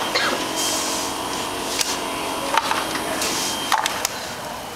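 Ping pong balls rolling through a built model track, with a few sharp clicks as they strike its parts over a steady rolling noise and a faint hum.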